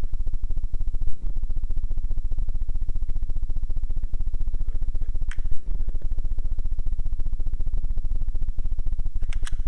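Steady low rumbling hum, broken by two sharp, muffled gunshots, about a second in and about five and a half seconds in, with a few short clicks near the end.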